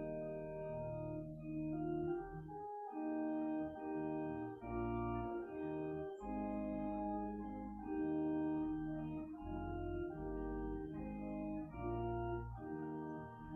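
Church organ played from a two-manual console: slow, held chords over deep bass notes, the harmony changing every second or so.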